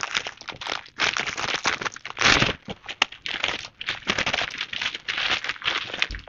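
Thin clear plastic bag crinkling and crackling as hands work an item out of it, with a louder crackle about two seconds in.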